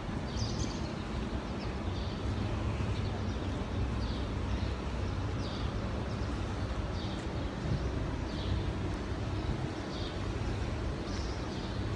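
Steady low rumble of wind on the microphone, with short high bird chirps repeating roughly once a second.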